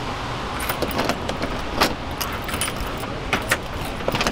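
A bunch of keys jangling and clicking in a doorknob lock as the door is unlocked and the knob worked, a run of sharp irregular clicks over a steady low background noise.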